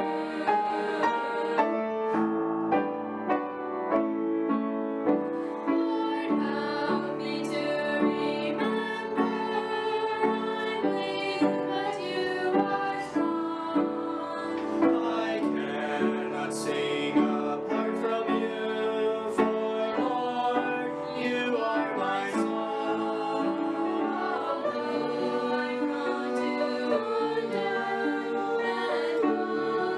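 Small mixed-voice vocal group of five, men's and women's voices together, singing a hymn in harmony with sustained notes.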